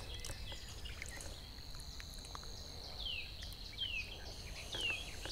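Evening waterside ambience: insects trill steadily at a high pitch, and a bird gives three short falling calls about a second apart in the second half. A few faint clicks come from handling the fish and line.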